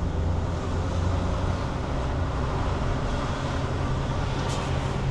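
Car driving, heard from inside the cabin: a steady low engine and road hum.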